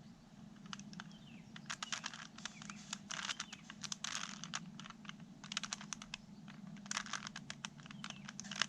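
Rubik's Cube layers being turned by hand: quick runs of plastic clicks and rattles, in clusters, as the pieces snap past one another.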